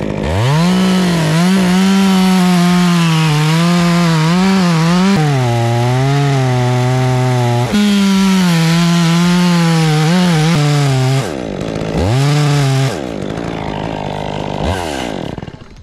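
Petrol chainsaw cutting into a tree trunk at high revs. Its engine note sags twice as the chain bogs in the wood and picks back up each time. Near the end it revs briefly, drops lower and stops.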